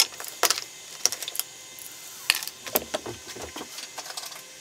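Light, irregular clicks and clatter of hands handling wires, LED tape and pliers on a wooden workbench, with a dozen or so sharp taps at uneven intervals.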